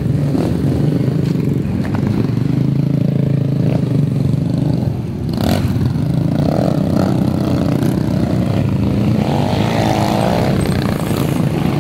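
A motor vehicle engine, likely a motorcycle, running loud and steady close by, with a brief drop in level about five seconds in.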